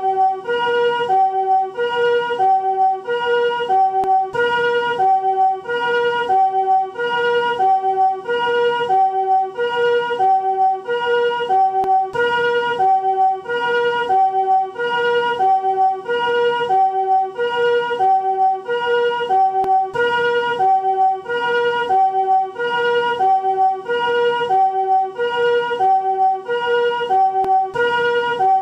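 Japanese ambulance two-tone 'pee-poh' siren of the newer chord (harmonic) type, each note sounded as several tones together. It alternates high and low evenly, switching about every half second.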